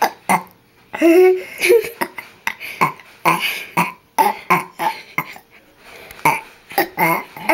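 A young girl burping over and over in a rapid string of short burps, with a longer, drawn-out burp about a second in.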